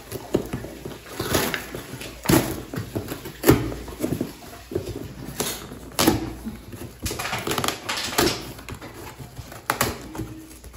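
Corrugated cardboard shipping box being torn open by hand: a string of short, irregular rips as the flap is pulled away, with crinkling and rustling of the cardboard between them.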